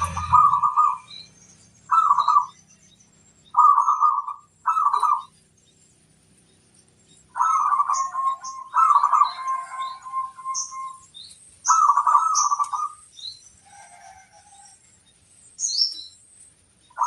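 Zebra doves (perkutut) cooing in short repeated phrases, one longer phrase trailing off a little past the middle. Small birds chirp thinly and high in between.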